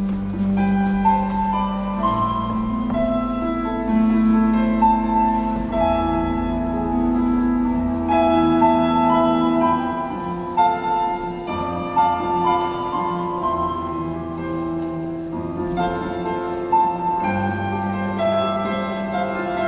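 Slow instrumental music played on keyboard, a gentle melody over long held bass notes that change every couple of seconds.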